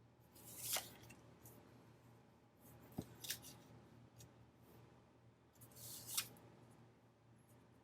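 Scissors cutting paper: three short snips, each a brief swish ending in a sharp click, about every two and a half to three seconds.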